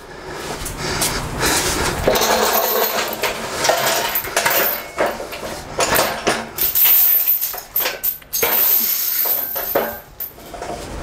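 Manual pallet jack being pulled and steered across a concrete floor, its steel frame, forks and wheels clattering and clinking, with short lulls near the end.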